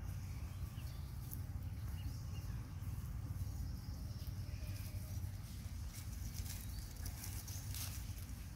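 Outdoor ambience: a steady low rumble with scattered faint clicks and rustles of dry leaves under the monkeys.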